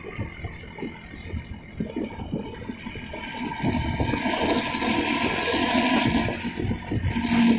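Bus engine rumbling through a growling 'ngorok' exhaust, with a rushing noise that swells from about halfway and cuts off abruptly at the end.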